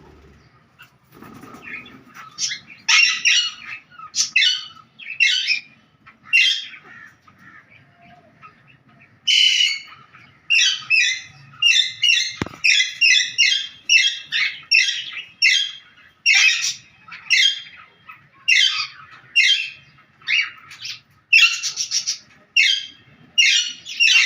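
Pet birds calling: a long series of short, harsh chirps and squawks, some coming singly and some in quick runs of two or three a second, with a short lull in the middle.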